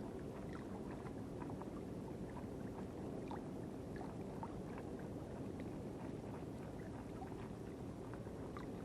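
Seawater lapping and sloshing steadily, with many small scattered clicks and ticks throughout.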